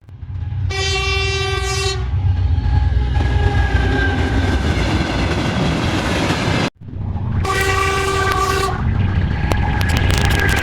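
Steam locomotive whistle blowing, one held blast of about a second and a half over the steady low noise of the train running. The sound cuts out for a moment partway through, then the same whistle blast and running noise start again.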